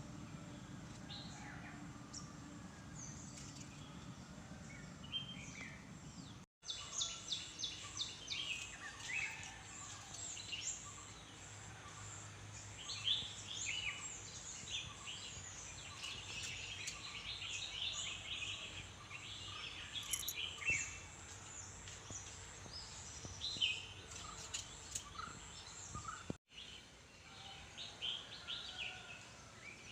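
Many birds chirping and singing together, a dense chorus of short high calls over a steady low background hum. The sound drops out for an instant about six seconds in and again near the end.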